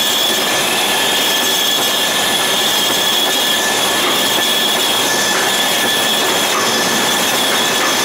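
CBN insert turning a slurry pump part on a vertical lathe: a steady cutting hiss with a high, unbroken squeal from the tool on the metal.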